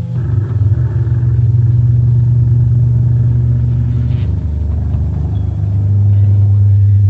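Loud, low, distorted drone from a lo-fi goregrind live tape: one rough, buzzing note held steady, then dropping to a lower note about five and a half seconds in.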